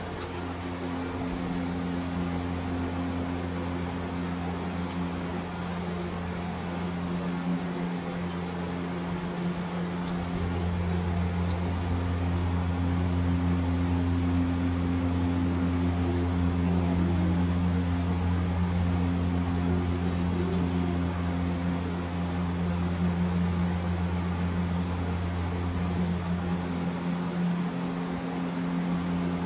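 A steady low mechanical hum, like an electric motor or fan running, that grows a little louder about ten seconds in.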